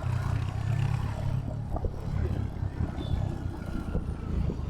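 Royal Enfield Hunter 350's single-cylinder engine running through its exhaust while riding, with the raw thump of a single, heard over road and traffic noise. It is loudest in the first second or so, then eases.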